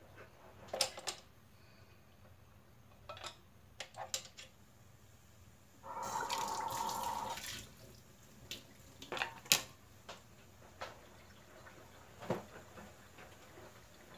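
Kitchen handling sounds: scattered light clicks and knocks, and a stream of liquid running or pouring for about a second and a half near the middle.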